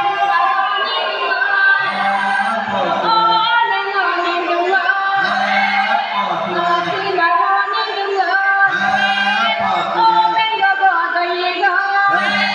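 A song with a woman singing over music, with a low repeating pattern that comes round about every three and a half seconds.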